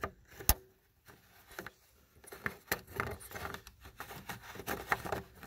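Hands working the plastic parts of a headlight assembly and its screw-on dust cap: one sharp click about half a second in, then a run of small plastic clicks, taps and rubbing.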